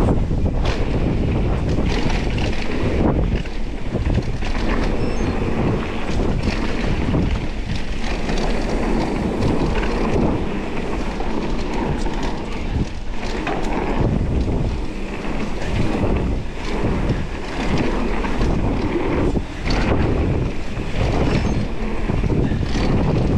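Wind buffeting the camera microphone at riding speed, over a mountain bike's tyres rolling on a dirt trail with frequent short clatters and knocks from the bike over bumps.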